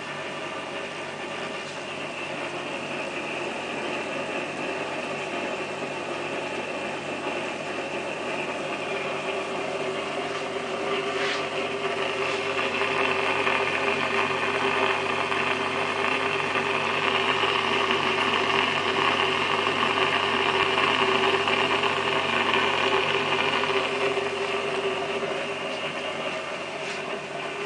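Aquarium filter running: a steady motor hum with water churning and bubbling. It grows louder about halfway through and eases off again near the end.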